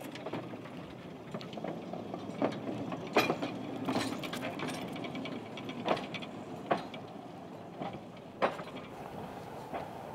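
Old tram running on uneven track: a steady rattling rumble broken by sharp, irregular clanks and knocks, about nine of them.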